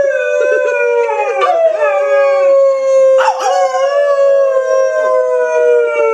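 Alaskan Malamute howling: one long howl ends about three seconds in and another begins straight after, each sliding slowly down in pitch.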